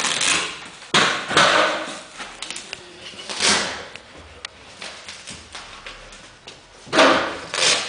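Rustling and handling noise from the blower door's nylon door panel and fan housing as the fan is fitted to the panel opening, coming in several swells with a sharp knock about a second in. No steady fan hum is present: the fan is not running.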